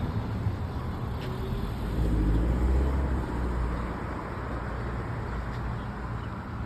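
Car and road traffic noise: a steady low rumble that swells briefly about two seconds in.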